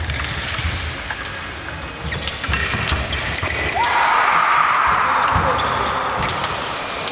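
Fencers' feet thudding on the piste in quick footwork. About four seconds in, the electric scoring machine gives a sustained tone as a touch registers, with both lamps lit.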